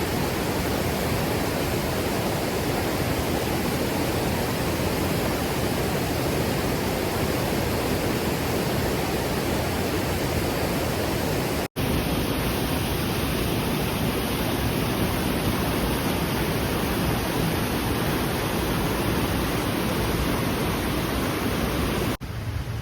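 Steady rushing of water with no pitch or rhythm. It drops out for an instant about halfway through and becomes quieter just before the end.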